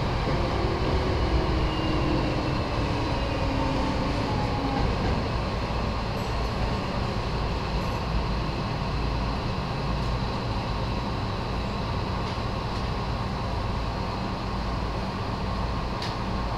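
Nose Electric Railway 7200 series electric train running, heard from inside the train. A motor whine falls in pitch over the first five seconds as the train slows, over a steady rumble of wheels and running gear.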